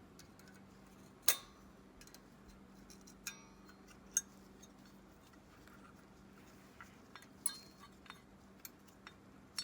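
Small metal carburetor parts being handled and set down on a workbench: a handful of scattered clicks and clinks, one with a brief metallic ring, over a faint steady hum.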